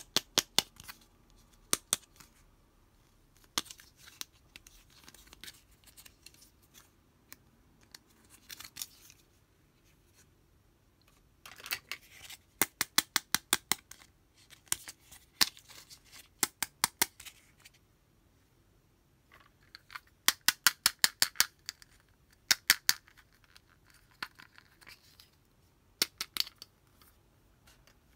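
Small hard-plastic toy makeup pieces clicking and tapping under long fingernails, in quick runs of sharp clicks with soft scratching between.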